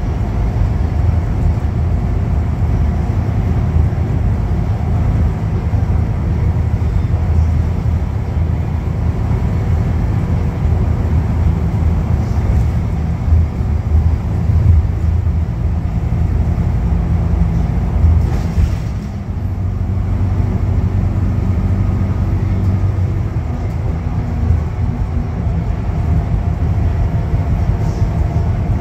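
Scania K310UB bus under way, heard from inside the cabin: its rear-mounted 9-litre five-cylinder diesel engine runs with a steady low rumble mixed with road noise. About 19 seconds in there is a brief dip in loudness with a short rattle, then the steady running resumes.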